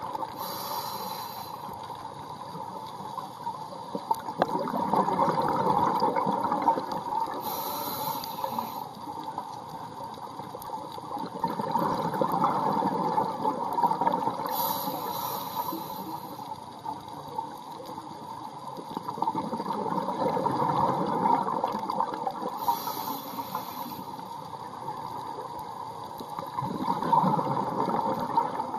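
Scuba diver breathing through a regulator, heard underwater: a short hiss on each inhale, then a long bubbling rumble on each exhale, four breaths about seven seconds apart.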